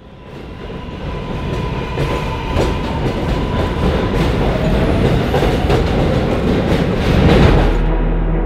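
New York City subway train passing at speed: a dense rumble and rattle of the cars with repeated clicks of the wheels over the rails. It fades in from silence at the start, grows louder, then turns duller just before the end.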